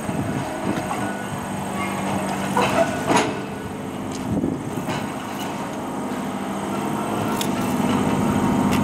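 Blackpool Boat tram running slowly over depot track: a steady electric hum with a few sharp clicks and knocks, growing louder near the end.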